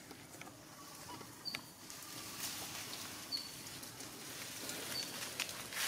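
Faint outdoor ambience in tree cover: light rustling and scattered clicks, with a short high chirp three times, about every second and a half.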